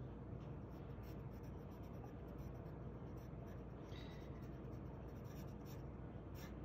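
Yellow wooden pencil sketching on a sheet of paper: faint scratchy strokes.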